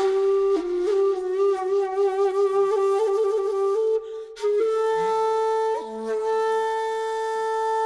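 Shakuhachi (Japanese end-blown bamboo flute) playing a slow melody. A lower note wavers with small ornaments, breaks off briefly about four seconds in, then gives way to a long steady higher note.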